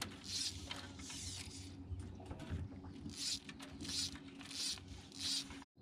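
Fly line being pulled off a fly reel in a series of quick hand pulls, each giving a short rasping buzz, with a lull a couple of seconds in. Under it runs the faint steady hum of a small electric trolling motor on the boat's stern.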